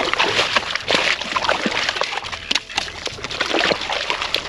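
Water sloshing and splashing in an ice-fishing hole as a hooked rainbow trout is fought at the hole, with many sharp irregular clicks.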